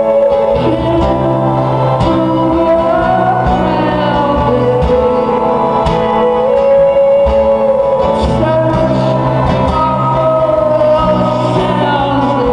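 Live rock band playing with a sung vocal line over sustained guitar tones and steady bass notes.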